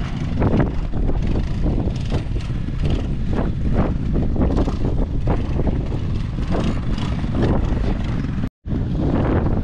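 Wind buffeting the microphone hard, over trials motorcycle engines being blipped on and off the throttle at low speed. The sound cuts out for a moment near the end.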